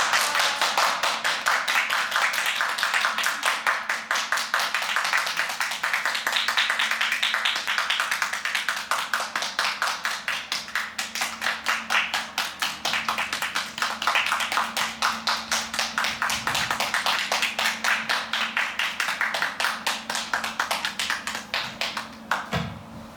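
A small group clapping their hands, quick and fairly even, at the close of a performance; the clapping stops shortly before the end.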